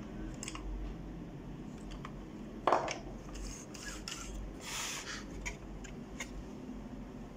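Hands and a small tool working plastic and metal parts of an opened Epson LQ-310 dot-matrix printer's carriage during reassembly: scattered small clicks and rubbing, one sharp click a little under three seconds in, and a short scrape about a second and a half later.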